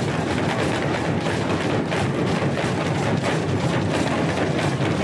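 Several Yoruba dundun talking drums played together with curved sticks, a dense, continuous stream of drum strokes.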